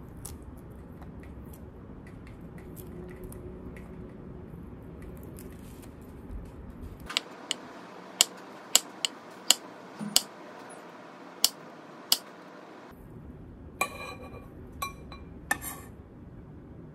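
Chef's knife slicing a firm, underripe avocado on a wooden cutting board: about ten sharp taps of the blade meeting the board over five seconds, after faint ticks of the skin being peeled off by hand. Near the end come a few short, ringing clinks on a ceramic bowl.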